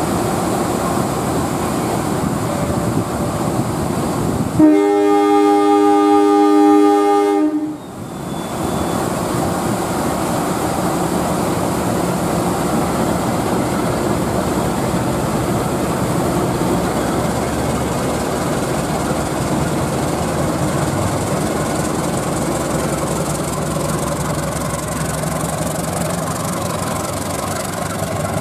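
CC 201 diesel-electric locomotive running as it moves slowly past, with its horn sounding one blast of about three seconds, about five seconds in.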